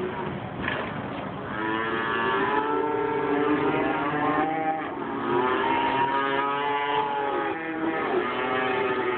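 Many calves crammed in a livestock truck bawling over one another, long drawn-out calls overlapping without a break.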